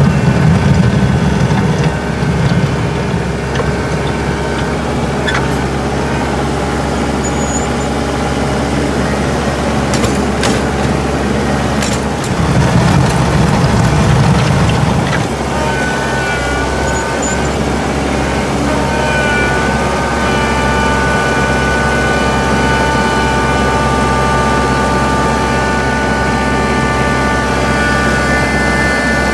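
Compact tractor engine running steadily while plowing snow with the front loader, working louder and rougher briefly near the start and again from about twelve to fifteen seconds in. A high, steady whine runs along with it in the second half.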